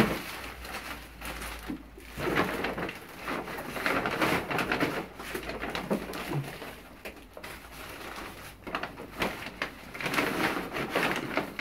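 Crinkling and rustling of a plastic fertilizer sack and newspaper as newspaper-wrapped bundles of green onions are pushed down into the sack, with a sharp knock at the very start.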